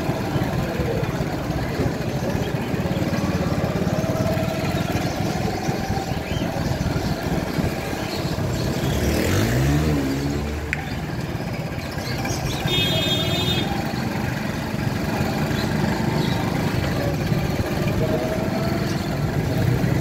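Motorcycle engine running steadily in busy street traffic. About nine seconds in, an engine revs up with a rising pitch, and about thirteen seconds in a short high-pitched tone sounds for about a second.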